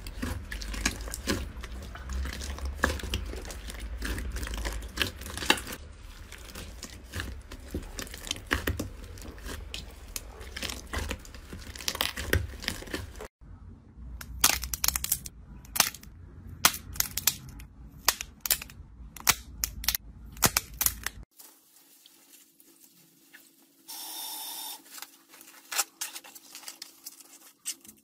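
Hands squeezing and pressing slime, giving a dense run of sticky clicks and pops. The sound cuts off abruptly about halfway through, then comes back with sparser, sharper clicks. For the last seven seconds it is much quieter, with a faint steady hum.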